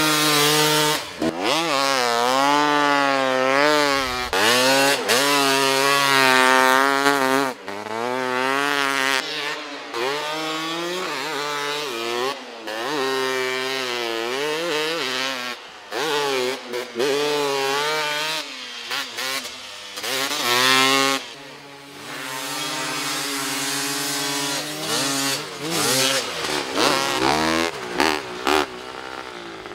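Snow bike engines, dirt bikes on ski-and-track conversions, revving up and down over and over, the pitch rising and falling with the throttle. The sound is broken by several abrupt cuts.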